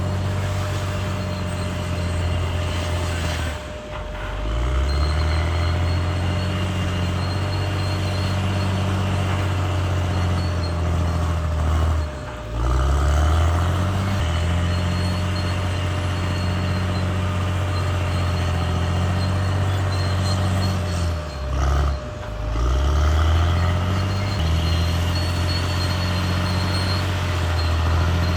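CAT D6R XL bulldozer's diesel engine running hard, with a steady whine over it. Three times, about 4, 12 and 22 seconds in, the engine note drops briefly and then climbs back up.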